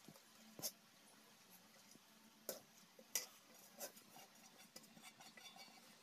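Faint handling of an aluminium bowl and pot as rice is tipped and scraped out of the bowl into the pot. About four short, sharp light knocks of metal on metal are spread through it, followed by a patter of small ticks near the end.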